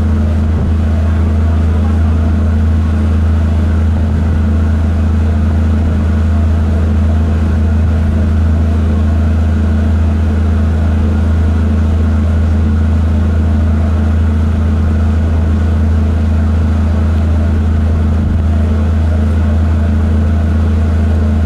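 Steady low drone of a cargo barge's diesel engine running, an even, unchanging hum.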